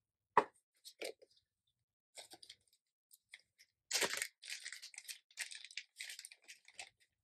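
Packaging being handled and unwrapped by hand: a few small clicks and rustles, then about four seconds in a run of crinkling and tearing that lasts about three seconds.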